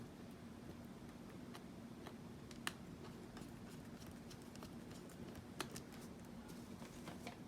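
Faint scattered clicks and taps of a small screwdriver driving screws into an HP laptop's plastic casing, with two sharper clicks, one about a third of the way in and one past the middle. A low steady hum runs underneath.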